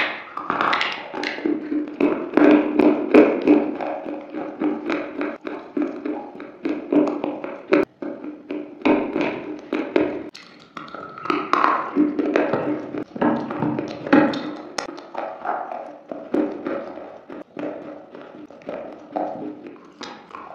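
Close-up chewing of slate: a continuous run of dry, crisp crunches and cracks in quick irregular succession.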